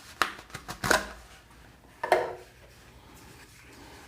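Steel drill bits and chisels being handled and taken out of their packaging: a quick run of light clicks and knocks, then a short clatter about two seconds in.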